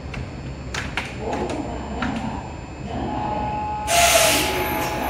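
Underground station platform ambience beside a standing Kintetsu 9820 series train: a few sharp clicks, then a steady high tone from about three seconds in, and a loud hiss of released compressed air from the train at about four seconds, lasting about a second.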